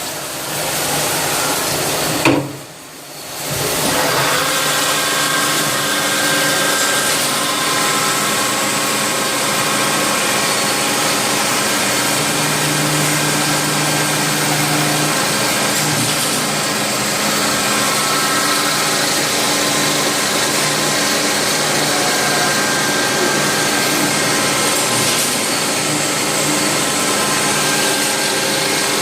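Rayfeng 32 CNC lathe running through a machining cycle: a steady mechanical whir with several held tones, which dips sharply for about a second near the start and then runs on evenly.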